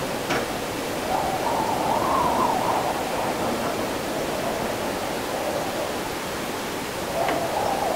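Windy after-rain city ambience: a steady hiss of wind noise, with a wavering howl that swells about a second in and again near the end. There are a couple of faint sharp ticks.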